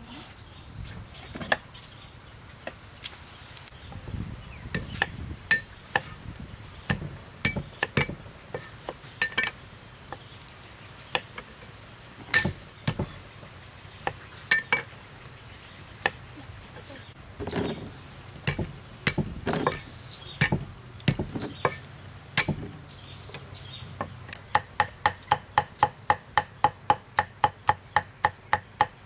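Kitchen knife cutting on a thick round wooden chopping block: scattered, irregular knocks as peeled potatoes are cut into chunks. Near the end it turns into fast, even chopping, about three to four strikes a second, as garlic is minced.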